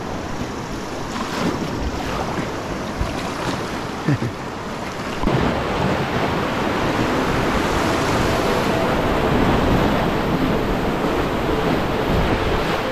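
Rushing whitewater of a rocky river rapid heard close up from a kayak at low water, growing louder about five seconds in as the boat drops into the rapid, with a few short paddle splashes before it.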